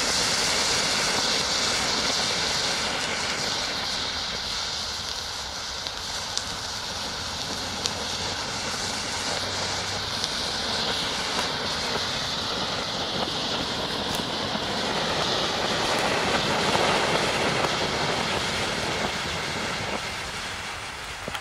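Colour-changing Bengal pot (Bengal flare fountain) burning on the ground with a steady hiss and a few faint crackles, growing weaker near the end as it burns down.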